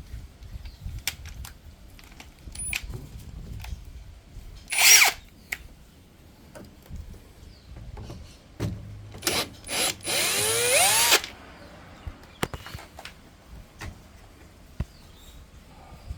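Power drill run in short bursts: once briefly about five seconds in, two quick blips, then about a second's run with a whine that shifts in pitch as the motor speeds up. Scattered clicks and knocks of tools and parts being handled come between the bursts.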